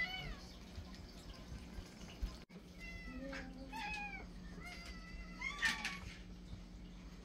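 Several hungry house cats meowing for their canned food: one rising-and-falling meow at the start, then a run of overlapping meows in the middle, the loudest a little before the end.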